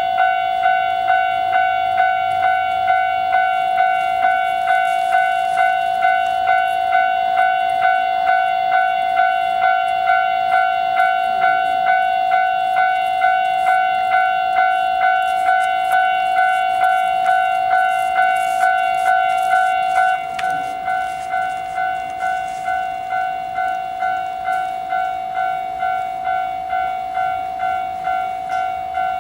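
Japanese railway level-crossing alarm ringing, a steady repeated ding at a little under two strikes a second. About twenty seconds in it drops noticeably in volume and keeps ringing.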